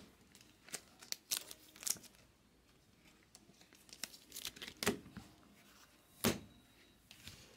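Trading cards and their wrappers or plastic holders being handled by hand: short, scattered crinkling and tearing sounds, the loudest about six seconds in.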